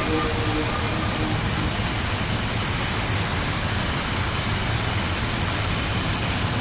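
Steady wash of static-like noise with a low rumble underneath, closing out an experimental black metal track; the last held notes of the music die away in the first half second.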